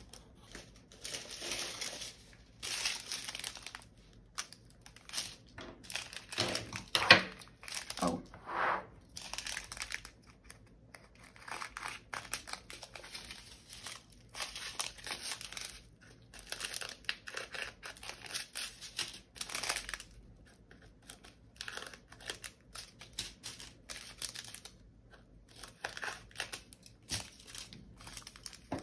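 Small plastic baggies of diamond-painting drills crinkling and rustling in short, irregular bursts as they are handled and opened, with one louder sharp clack about seven seconds in.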